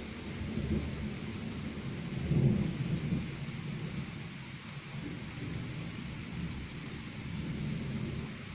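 Distant thunder rumbling low and long, swelling to its loudest about two and a half seconds in, then fading back to a low roll.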